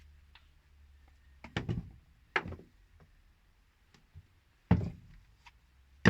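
Three sharp clunks, a doubled one a second and a half in, another just after, and a third near the end, with a few faint ticks between: tools and tap parts being handled and set down during the repair.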